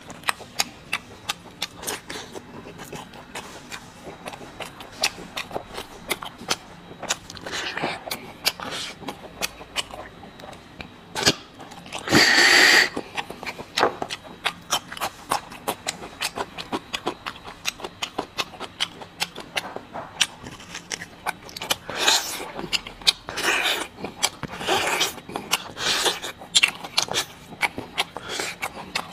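Close-up eating sounds: rapid wet mouth clicks and lip smacks from chewing, with noisy slurps of marrow being sucked from braised bone pieces. A long loud one comes about twelve seconds in and several shorter ones come near the end.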